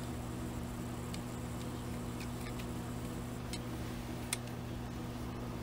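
A few light, scattered clicks as a metal yarn needle is worked through stitches hanging on the knitting machine's metal needles, with the sharpest click a little after four seconds, over a steady low hum.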